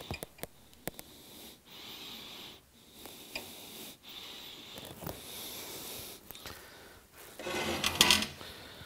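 A person breathing slowly in and out close to the microphone, several breaths in a row, with a few light clicks at the start. About seven and a half seconds in comes a louder burst of rattling handling noise lasting about a second.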